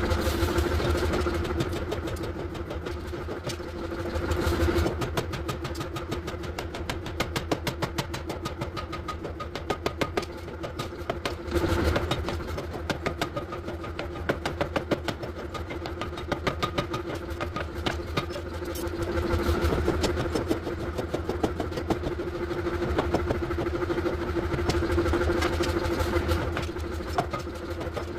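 Steady machine drone in a forge, with runs of short, sharp impacts that fit hammer blows on steel.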